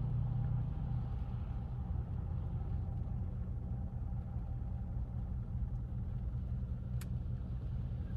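Car engine idling, heard from inside the cabin while the car is stopped: a steady low rumble. A single sharp click comes about seven seconds in.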